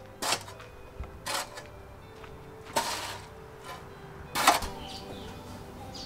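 A long-handled shovel digging into dry soil: four short strokes spread over about four seconds, the last one the loudest.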